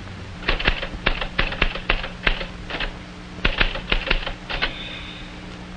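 Manual typewriter keys clacking in irregular runs of keystrokes, with a short pause about halfway through and the typing stopping well before the end.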